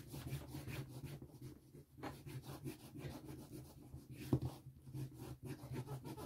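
Caran d'Ache wax pastel being rubbed onto a surface in quick back-and-forth strokes, several a second, to colour in a background. There is one sharper tap about four seconds in.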